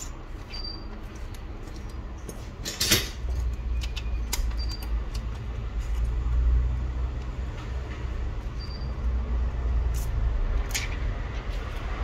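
Steady low rumble with scattered clicks and crinkles of a plastic adhesive sheet being handled and fitted to a phone's back glass, the sharpest click about three seconds in.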